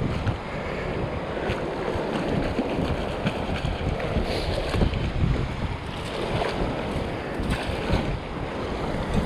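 Wind buffeting the microphone over the wash of small waves running through shallow surf.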